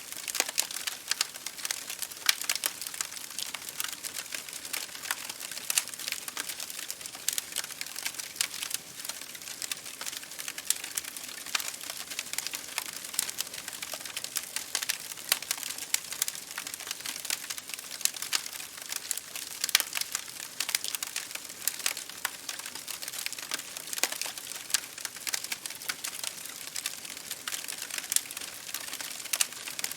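Wood bonfire burning, with a steady hiss under dense, irregular crackles and sharp pops from the burning wood.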